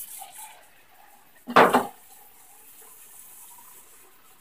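Kitchen tap running a thin stream of water into a paper cup, faint and steady, with one loud, short knock about a second and a half in.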